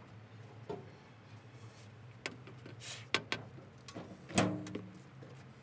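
Metal parts of an excavator's radiator and cooler plumbing knocking and clanking as they are handled, with about six separate knocks. The loudest, about four and a half seconds in, rings briefly. A low steady hum runs underneath.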